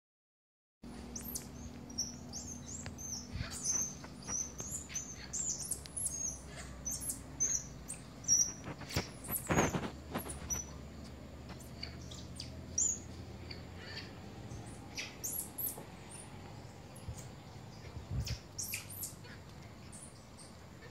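Squirrel monkeys chirping: many short, high-pitched peeps in quick succession, starting about a second in, with a sharp knock near the middle and a couple of soft thumps.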